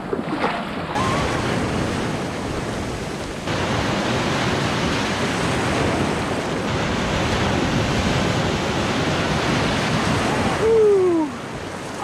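Ocean surf rushing and foaming around a person wading in shallow water, a steady wash of breaking waves. Near the end a short cry that falls in pitch is the loudest moment.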